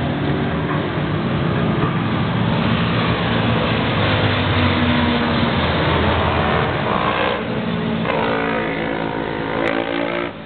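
A pack of motorcycles on a racetrack passing close by, many engines running at once. In the last few seconds several overlapping engine notes slide up and down in pitch, and the sound drops off suddenly at the very end.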